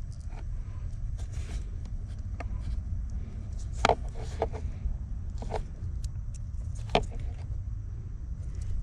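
Hands handling automotive wiring and a plastic connector: scattered sharp clicks and light rustles, the loudest about 4 and 7 seconds in, over a steady low rumble.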